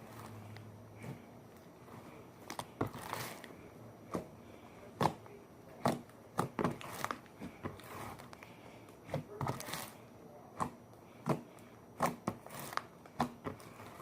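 Slime being squished and worked by hand, giving irregular sharp clicks and crackling pops.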